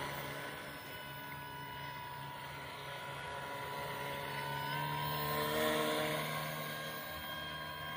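Homemade RC airboat's brushless electric motor and air propeller running, a steady buzzing hum. Its pitch steps up slightly a little before five seconds in, and it grows louder just after.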